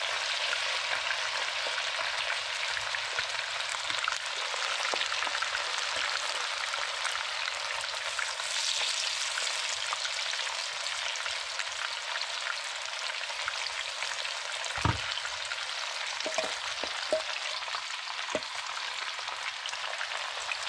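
Small bangamary fish sizzling steadily as they shallow-fry in hot oil in a frying pan, with a few sharp clicks in the second half, the loudest about three-quarters of the way through.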